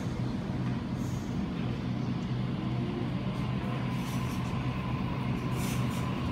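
Sydney Trains double-deck electric train at close range, its equipment giving a steady low hum, with a faint thin whine joining in the second half and a short hiss of air near the end.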